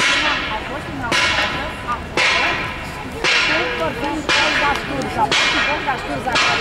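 A church bell tolling about once a second, each stroke ringing on until the next, with a group of people talking underneath.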